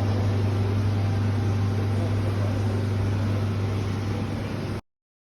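Refrigeration equipment running: a steady low hum under an even fan-like rush, cutting off suddenly near the end.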